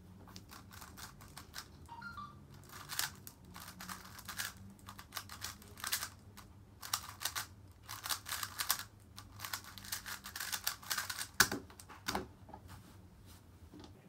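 A 3x3 speedcube being turned fast by hand: rapid plastic clicking in bursts with short pauses, and one sharp knock near the end.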